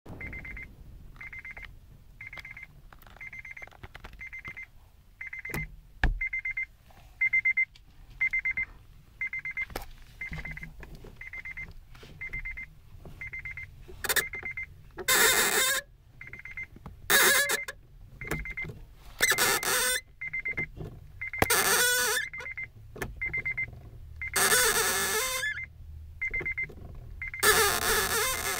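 Acura RSX Type-S clutch giving a loud squeak about six times in the second half, each lasting a second or two, as the clutch is slowly released. Under it, a short high beep repeats about twice a second throughout.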